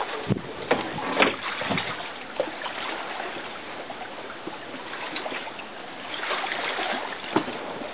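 Shallow water splashing and sloshing as a person wades alongside a small boat and moves it through the water, with a few sharp knocks in the first two seconds and another near the end.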